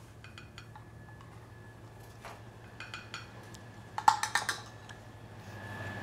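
Kitchen utensils and crockery clinking in scattered short strikes, the loudest cluster of ringing metal-on-plate clinks about four seconds in, over a steady low hum.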